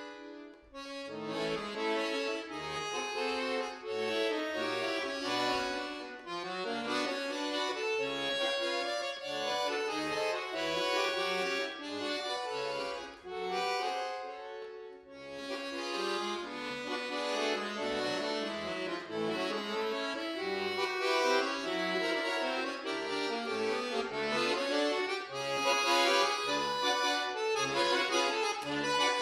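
Solo bayan, a Russian chromatic button accordion, playing a classical concert piece: a busy melody of many changing notes over short, separate bass notes. The playing breaks off briefly about half a second in and again around fifteen seconds in.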